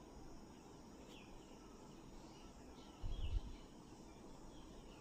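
Quiet background ambience with a few faint, short high chirps. A brief low rumble comes about three seconds in.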